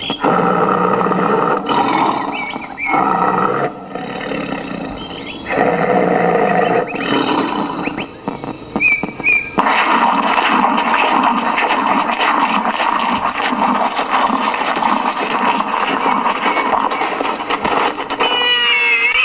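Recorded tiger roaring and snarling as it attacks a wild boar, in broken calls at first, then one continuous stretch, with high squeals starting near the end. This is the predator sound that a bio-acoustic wild boar repeller broadcasts to drive wild boar from crop fields.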